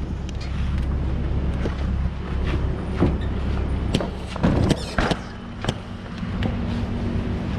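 Knocks and clunks as a Yamaha Raptor 660 ATV is rolled down off a pickup truck bed onto pavement, loudest about four and a half to five seconds in, over a steady low rumble.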